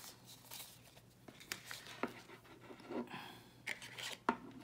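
Paper and plastic packaging rustling, with a series of small taps and clicks, as the contents of a smartphone box are handled and taken out.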